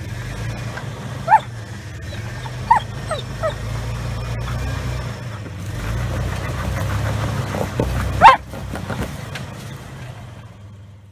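A dog gives about five short barks, the loudest about eight seconds in, over the steady low running of a Jeep Wrangler's engine as it crawls over rocks.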